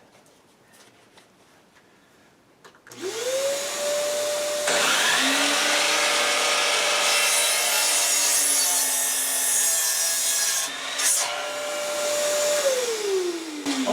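Electric miter saw spinning up, then its blade cutting through a wooden 4x4 post for about six seconds, and the motor winding down with a falling whine near the end.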